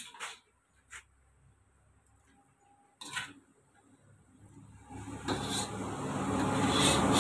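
Noodle soup being served from a steel wok: a few light clinks of a metal ladle and tongs against the bowl, then a rasping, rubbing noise that grows steadily louder over the last few seconds.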